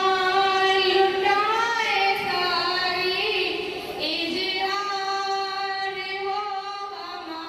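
Two young women singing a slow melody into microphones in long held notes: one phrase of about four seconds, a brief break, then a second held phrase that fades near the end.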